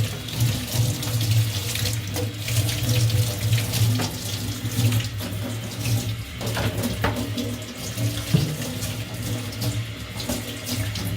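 Tap water running and splashing in a sink as a plastic computer case is rinsed of cream cleanser, with irregular splashes over a steady low hum.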